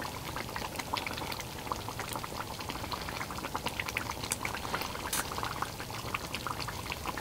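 Curry sauce simmering in an uncovered cast iron pot, a steady run of small irregular bubbling pops.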